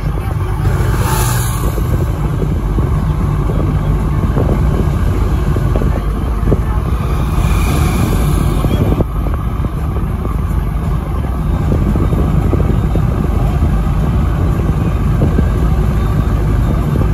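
Road noise of a moving vehicle: a steady low rumble with hiss, swelling briefly twice, about a second in and again around seven to nine seconds.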